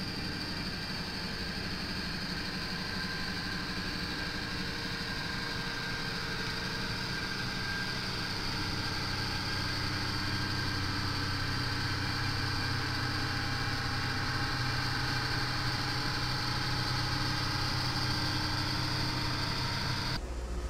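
Diesel engine of a BNSF work train with a rail crane car running steadily as the train rolls slowly past. The low hum grows a little louder about halfway through.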